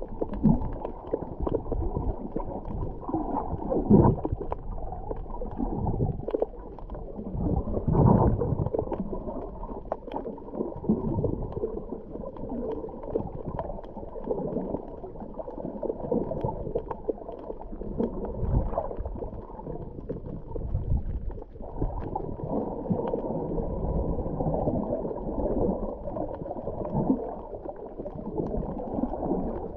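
Muffled underwater water sound picked up by a submerged camera: low sloshing and gurgling that swells and fades, with louder surges now and then, the strongest about four and eight seconds in.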